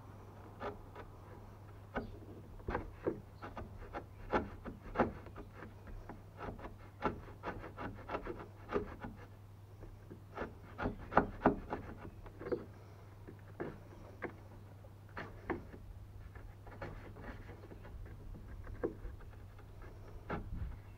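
Wood chisel pared by hand into clamped timber, cutting a notch for a stringer: irregular crisp clicks and short scrapes, a few a second, as shavings are sliced off.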